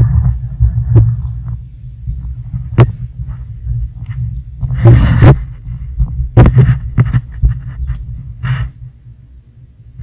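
Wind buffeting the microphone in a low, uneven rumble, with a few sharp knocks and short rustling bursts from handling.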